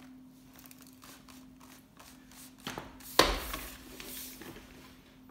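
Handling noise: light clicks and rustles, then one loud knock about three seconds in, over a faint steady hum.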